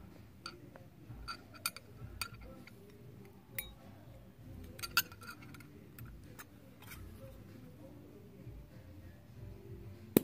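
Small round metal tin and its lid being handled: scattered light metallic clicks and clinks, with one sharp, louder click near the end.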